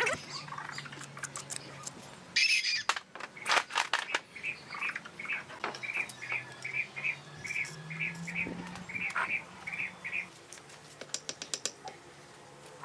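A bird calls the same short high note over and over, about three a second, for around five seconds. Sharp knocks from bricks being tapped into wet mortar come before it and again near the end.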